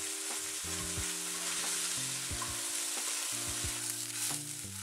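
Tofu pieces sizzling as they fry in hot oil in a nonstick frying pan, with a spatula stirring and tossing them and knocking softly against the pan a few times.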